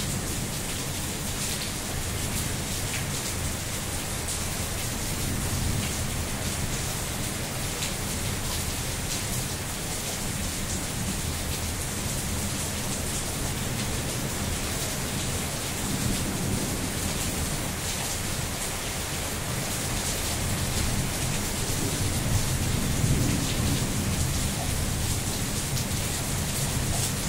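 Steady heavy rain falling, with a low rumble swelling up twice, around the middle and near the end.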